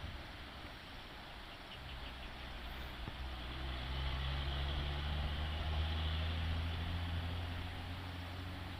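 Diesel engine of a concrete mixer truck coming down a steep slope, a steady low hum that grows louder about two seconds in, is loudest in the middle, then eases off as the truck passes.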